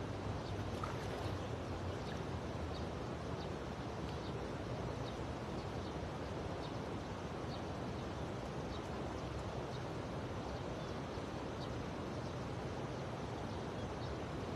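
Steady rushing of flowing river floodwater, with faint high chirps repeating about once or twice a second.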